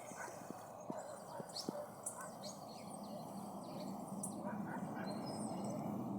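Small birds chirping with many short, high calls over a steady background noise that grows louder toward the end.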